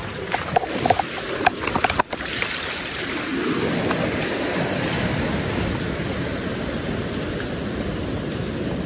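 Sea surf washing on a beach: a steady rush of waves that swells a few seconds in. Several sharp clicks sound in the first two seconds before an abrupt break.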